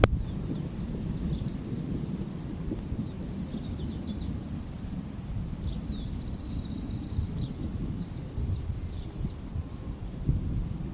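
Small birds chirping, with many short falling calls and a couple of rapid trills, over a steady low rumble.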